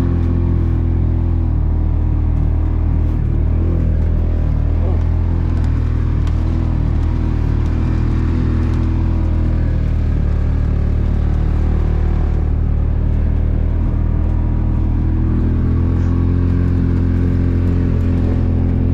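Vehicle engine running at a steady speed under way, a deep, even drone.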